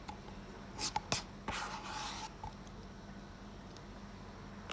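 Soft handling noises during a meal: a few light clicks about a second in, then a brief rustling scrape, like utensils or food packaging being handled.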